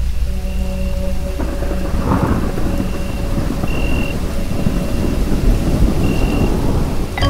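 Thunder rumbling with rain under a soft ambient music pad. The rumble starts about a second and a half in, crackles loudest soon after, and cuts off sharply near the end as the music changes.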